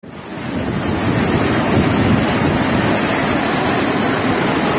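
Rushing muddy floodwater: a loud, steady, churning noise that starts suddenly and swells over the first second.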